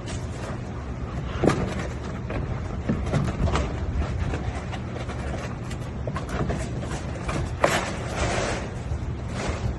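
Scattered knocks and scrapes as a wide sanding belt is slid by hand into a belt sander, over a steady low hum. The sharpest knock comes about three-quarters of the way through.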